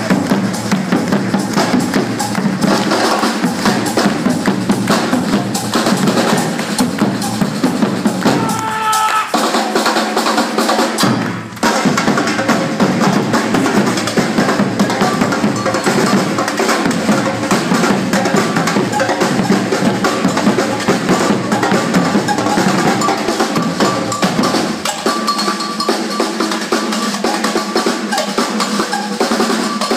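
A drum ensemble beating large rope-tensioned drums with sticks in a fast, continuous rhythm, with a brief break about eleven and a half seconds in.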